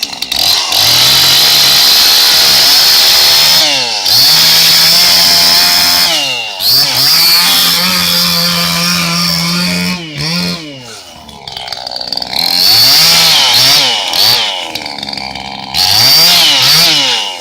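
Two-stroke chainsaw engine revved hard again and again, its pitch climbing to full throttle and dropping back. It settles briefly to a low idle about eleven seconds in, then gives a run of quick blips near the end.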